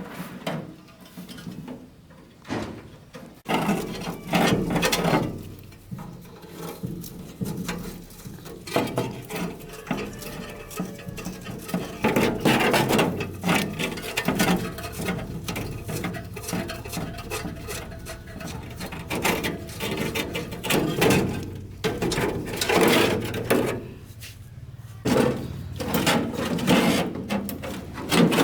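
Repair work on a machine: irregular clicks, knocks and scraping of hand tools and metal parts being handled. A steady low hum runs underneath from about three seconds in.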